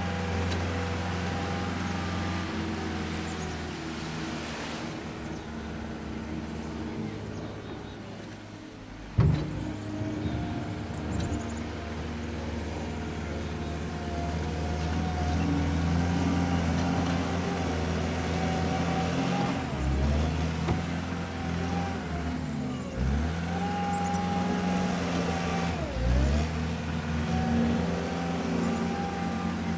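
Compact wheel loader's diesel engine running under load while pushing and lifting snow, its note dipping and recovering several times in the second half. A single sharp knock about nine seconds in.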